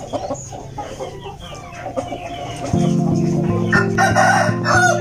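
Chickens clucking with a rooster crowing. Music comes in a little past halfway and runs under the calls.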